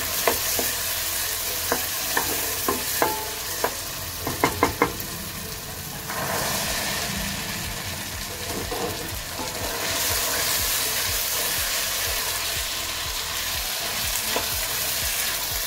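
Peas being stirred into sizzling masala in a kadhai, the wooden spatula clicking and scraping against the pan a dozen or so times in the first few seconds. After that a steady frying sizzle, a little louder from about six seconds in; the masala is fried to the point where the oil separates.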